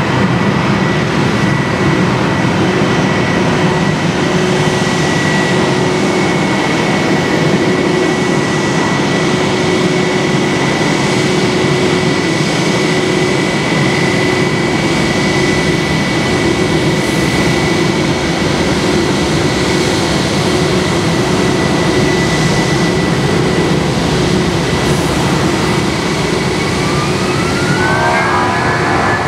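Airliner jet engines running steadily at idle: a loud, even rush with a steady whine held throughout. Near the end a second set of tones rises in pitch.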